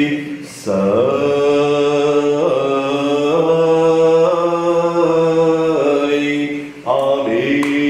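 A priest's voice chanting the closing words of the Gospel reading in Orthodox liturgical chant, holding long notes and stepping between pitches. The chant breaks off briefly near the end and then resumes.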